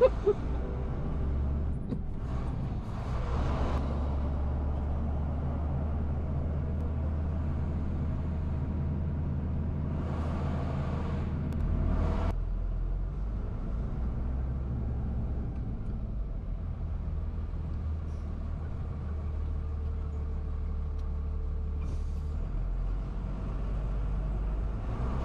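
Heavy truck's engine running with a steady low rumble, with two longer hisses about three and ten seconds in. A couple of sharp clicks right at the start.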